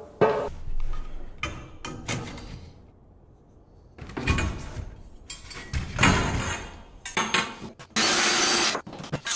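Hands-on conduit and electrical box work: knocks and clatter of metal parts being handled and fitted, with a short, even burst of a power tool about eight seconds in.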